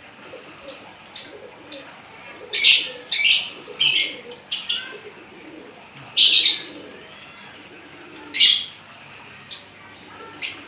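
Lovebird calling in sharp, high-pitched chirps, about a dozen short calls at irregular intervals, several in quick pairs, with a longer gap just past the middle.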